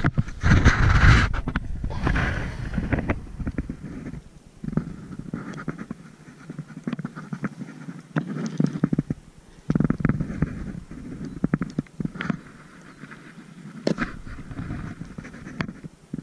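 Close handling noise as fishing pliers work a hook out of a catfish's mouth: loud low bumps and rubbing in the first two seconds, then scattered clicks and short rustles.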